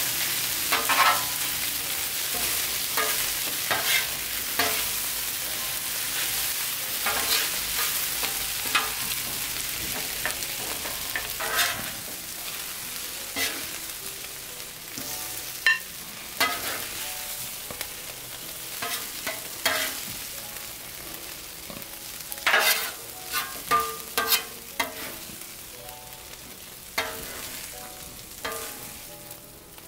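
Stir-fried noodles sizzling on a Blackstone steel flat-top griddle while metal spatulas scrape and clack against the plate, tossing and scooping the food. The sizzle gradually dies down, and the sharp spatula clacks come in irregular clusters throughout.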